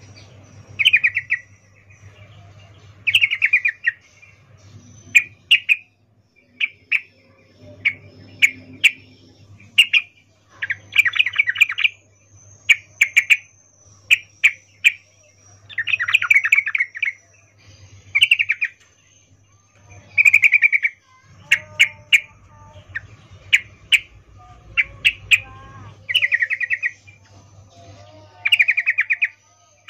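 Yellow-vented bulbul giving repeated short, rapid chattering calls, each burst under a second long and coming every second or two, with sharp single notes between them. The uploader presents it as a female's in-heat call ('ngecuplik') to a male.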